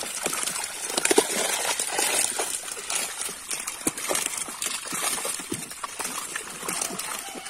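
Mass of live fish thrashing in shallow water crowded inside a net, a constant jumble of quick splashes, slaps and sloshing.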